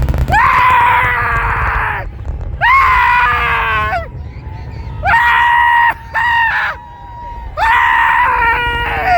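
A person screaming in excitement, several long high-pitched cries in a row, each held about a second and falling off at the end, over a low rumble.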